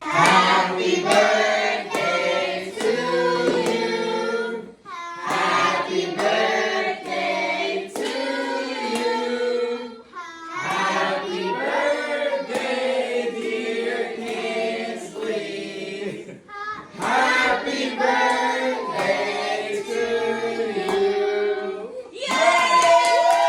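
A choir singing together in phrases of a few seconds each, with brief breaks between them.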